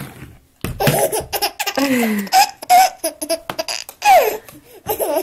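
A baby laughing hard in many short bursts of giggles that rise and fall in pitch, starting after a brief pause about half a second in.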